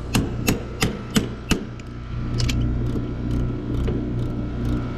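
Metal wrench being hammered, about five sharp clanks in quick succession in the first second and a half, to knock a tight fitting open. After that, faint light ticks over a steady low hum.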